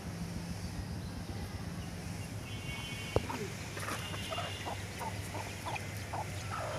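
A steady low hum with a single sharp click about three seconds in, followed by a run of short bird calls.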